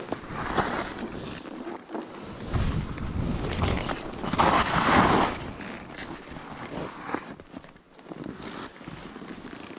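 Skis running and turning through deep powder snow: a rushing hiss that swells with each turn, loudest about four to five seconds in, with wind buffeting the microphone.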